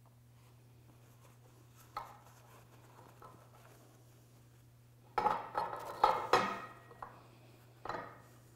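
Metal clinks and clatters as a ball-and-trunnion drive shaft is handled on a steel workbench while old grease is wiped from the joint housing: one sharp clink about two seconds in, a quick flurry of knocks around five to six and a half seconds, and one more near the end.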